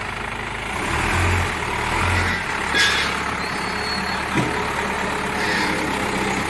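Diesel engine of a Cat 424B backhoe loader running steadily, with two short sharp knocks about a second and a half apart near the middle.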